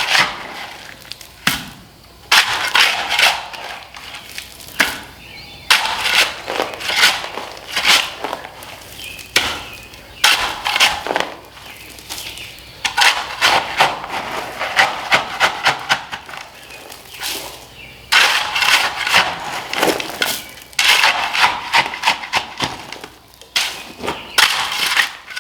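Hand shovel digging a trench in dirt and gravel: bursts of crunching and scraping strokes, one every few seconds, as the blade is driven in and the spoil is thrown.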